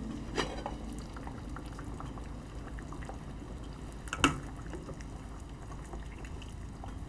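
A pot of soup simmering on a gas stove, with two sharp clinks of metal cookware: a light one just after the start and a louder one about four seconds in.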